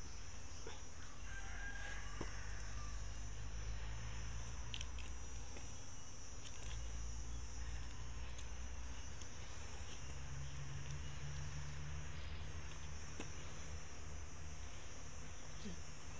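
Rural outdoor ambience: a steady high-pitched insect chirring over a low steady rumble, with a few faint soft clicks.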